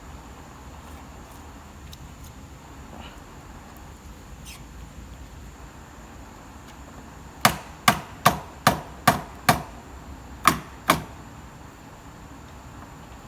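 Hammer blows on wood: six sharp strikes in quick succession, about two a second, then two more after a short pause.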